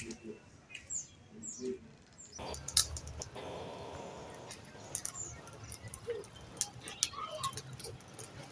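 Outdoor background with birds chirping and scattered short clicks and scrapes, which come in about two and a half seconds in after a quieter start.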